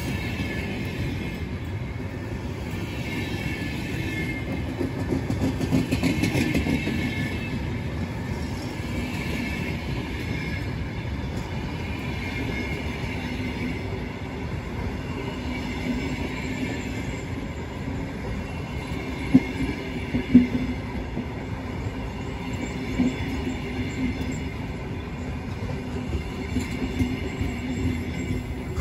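VR night train's passenger cars rolling slowly past along a station platform, with a steady rumble of wheels on rail. A high squeal comes and goes from the wheels and is loudest about six seconds in. Two sharp metallic clanks come about a second apart, a little past the middle.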